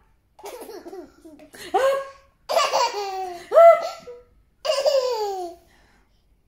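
Baby laughing: softer babbling sounds at first, then several louder, high-pitched bursts of laughter, each falling in pitch.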